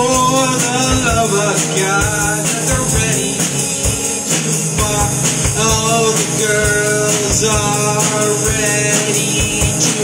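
A rock band playing: electric guitar and a Peavey drum kit with steady drum hits and cymbals ringing, under a melody that slides up and down in pitch.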